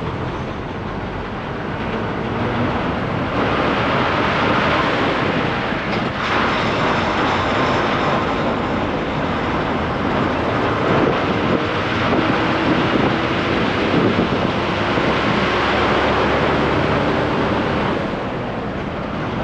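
Ashok Leyland bus diesel engine roar heard from inside the cab beside the driver, running hard as the bus picks up speed on the highway. It grows louder about three seconds in and eases a little near the end.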